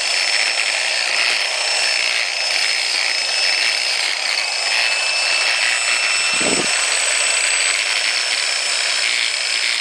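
Lathe running steadily with a high whine as it spins a Spyder paintball marker body being turned down, with one short low thump about six and a half seconds in.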